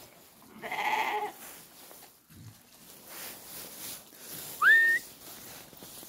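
A goat bleats once, about half a second in. Near the end comes a short rising whistle, louder than the bleat.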